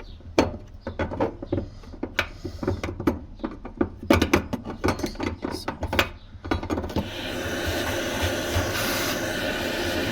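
Handheld tools and parts clicking and knocking for several seconds. Then, about seven seconds in, a vacuum cleaner starts running steadily.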